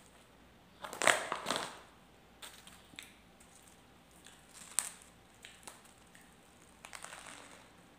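Eating sounds up close: a person biting, chewing and tearing a soft bread roll with cheese, with scattered short smacks and crackles, the loudest cluster about a second in.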